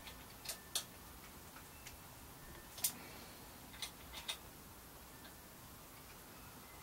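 Several short, sharp clicks at irregular spacing from an Allen key working the bike crank's pinch bolts, tightened alternately a bit at a time.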